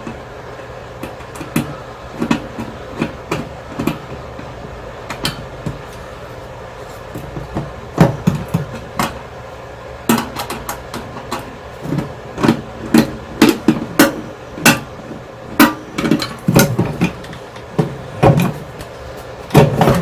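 Irregular knocks, clicks and clunks of parts being worked loose and handled while a microwave oven is taken apart, sparse at first and coming faster and louder in the second half.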